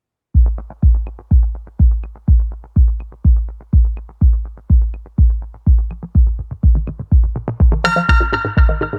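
Electronic dance music: a heavy kick drum on every beat, about two a second, with light ticks between; a bright synth chord and cymbal crash come in near the end.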